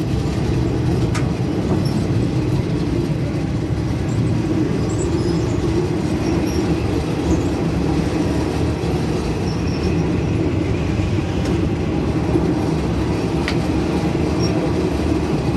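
Passenger train running along the rails, heard from aboard a carriage: a steady, dense rumble of wheels and carriage with a few faint clicks.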